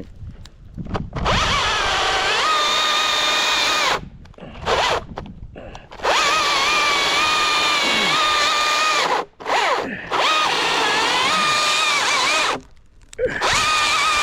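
Husqvarna chainsaw revved to full throttle in a series of bursts, about six in all and the longest around three seconds, its pitch dipping and wobbling as the chain bites into the pine.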